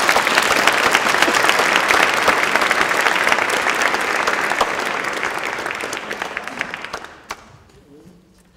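Audience applauding. The clapping is dense and strong, then thins out and dies away about seven seconds in with a few last claps.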